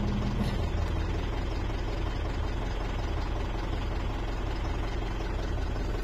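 Mitsubishi Strada's diesel engine idling steadily, heard from inside the cab. It is now starting and running with its faulty immobilizer antenna removed.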